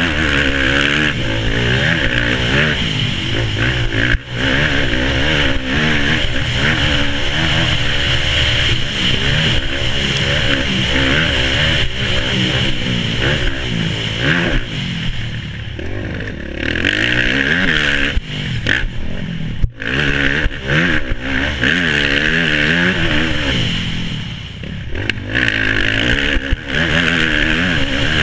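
Dirt bike engine under race throttle, heard from a helmet-mounted camera, repeatedly revving up and dropping as the rider shifts and rolls off. There are a few brief cuts in the throttle along the way, along with wind and track noise.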